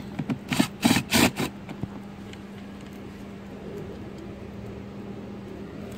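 A few quick scrapes and knocks in the first second and a half as screws and plastic parts of a pickup's dashboard heater and air-conditioning housing are worked on by hand and with tools. After that only a steady low hum remains.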